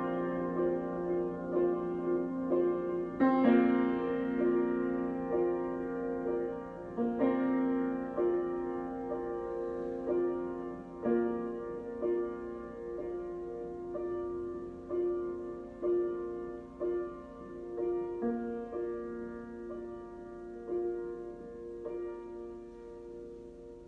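Solo piano improvisation: soft notes struck about once a second over a sustained low note, gradually getting quieter toward the end.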